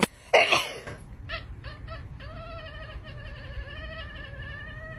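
A cat gives a short falling meow, then after a few light clicks lets out one long wavering yowl, held for about three seconds.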